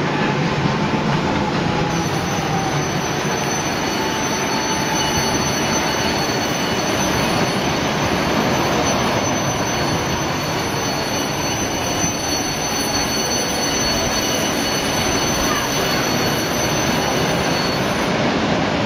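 Sliding dragon mini roller coaster train running along its steel track: a steady rumble of the wheels with a thin, high squeal that starts about two seconds in and holds until near the end.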